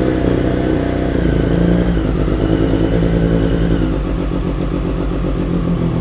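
A 2022 Triumph Street Triple RS's 765 cc inline-three idling through a steel aftermarket cutback exhaust. The idle wavers slightly as the engine settles into a freshly flashed ECU tune.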